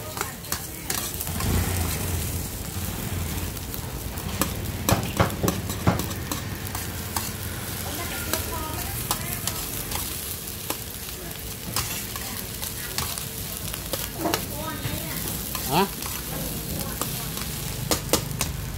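Fried rice with beef and egg sizzling in a wok as a metal spatula stirs and scrapes it, with irregular sharp clinks of the spatula against the pan over a steady low hum.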